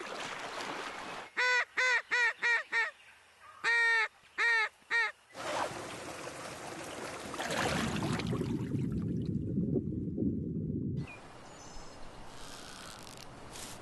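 Waterfowl calls in two quick runs, five then four, each call short and of the same pitch. Then the steady rush of a rocky river for several seconds, fading to a quieter hush near the end.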